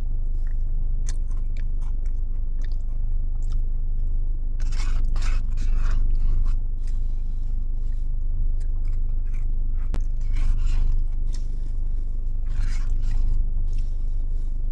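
A spoon scraping through a Biscoff caramel dessert in its cup, in several short bursts, along with chewing and crunching of the biscuit topping. A steady low hum runs underneath.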